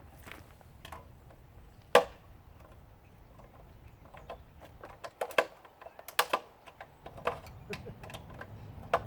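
Scattered metallic clicks and knocks of hand tools working at the bolts on an air conditioner's fan motor, one sharp knock about two seconds in and a quick cluster of them a few seconds later.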